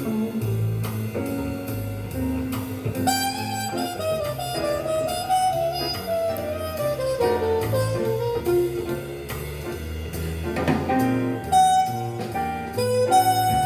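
Jazz music played through a single-ended valve amplifier with Miniwatt EL3N pentode output valves: a melody line that slides between notes over a bass line of changing held notes.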